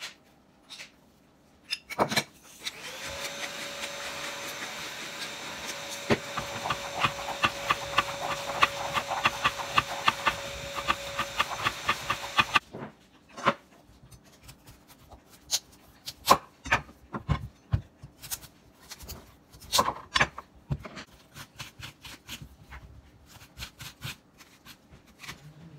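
A steady whirring, grinding noise with fast regular ticking lasts about ten seconds and then stops abruptly. After it come scattered clacks and knocks as cubed butternut squash is tossed by hand on a metal sheet pan.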